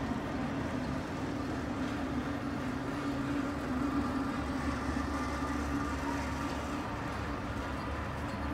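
Steady low rumble of city vehicle traffic, an even drone with a low hum in it and no distinct events.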